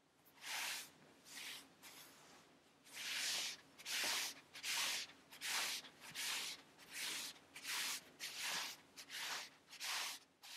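A hand rubbing and pressing down a terry towel to blot a sheet of damp printing paper beneath it: repeated brushing swishes of palm on towelling, two slower strokes at first, then about a dozen even strokes, a little over one a second.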